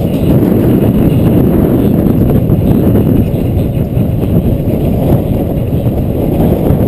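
Wind buffeting the microphone of a camera riding on a bicycle during a fast road descent: a loud, steady, low rush with no break.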